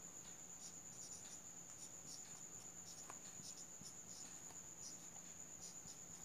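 Marker writing on a whiteboard: faint, irregular short stroke sounds over a steady high-pitched tone and a faint low hum.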